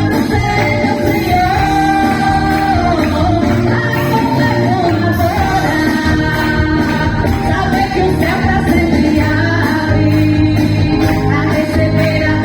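Women's choir singing a worship song over instrumental accompaniment with a steady beat.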